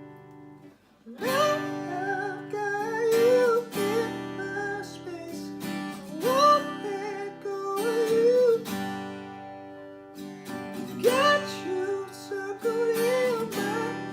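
Acoustic guitar strumming chords under a male singing voice with gliding, held notes. Everything drops out briefly about a second in, then the guitar and voice come back in.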